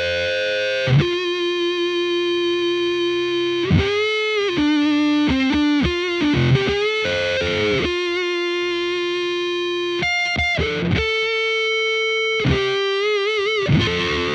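Electric guitar through a FuzzHugger FX Lab Ratchet fuzz pedal, playing long sustained single-note lines with string bends. The notes stop abruptly between phrases. With the Ratch gate knob around its midpoint, the fuzz has a textured, slightly velcro-y grain without hard gating.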